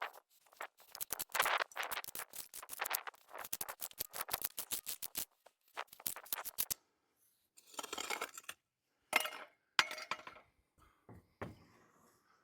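Hand tools working broken concrete: a quick run of sharp clinks and scrapes for the first half, then a few separate scrapes.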